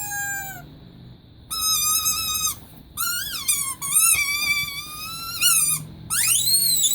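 Rubber teddy bear squeaky toy being squeezed repeatedly, giving several separate squeaks of about a second each. Some squeaks hold a steady pitch, while others waver or rise and fall. Before them, a steady squeal fades out with a drop in pitch about half a second in.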